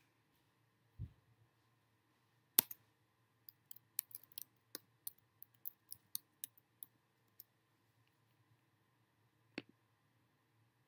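Sharp clicks and taps of hands handling the camera close to its microphone. A soft low thud comes about a second in, then one loud click, then a quick irregular run of small clicks over about four seconds, and a last click near the end.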